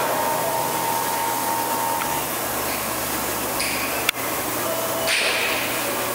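Large-capacity Kinwa CL78 CNC lathe running: steady machine noise with faint steady tones, a sharp click about four seconds in, and a change in the hiss about a second later.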